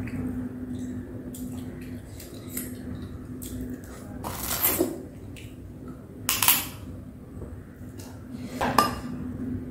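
Close-up eating sounds of cooked crab: three loud slurps and sucks as meat is drawn out of a crab claw shell, over many small clicks and cracks of the hard shell being handled and pulled apart.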